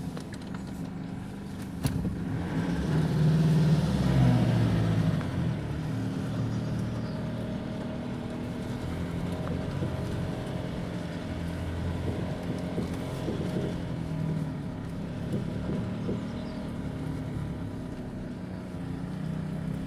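Four-cylinder 2.5 dCi turbodiesel of a Nissan Navara D40 pickup running as the truck drives off-road. It pulls louder for a few seconds from about two seconds in, then runs steadily. There is a single sharp click just before it picks up.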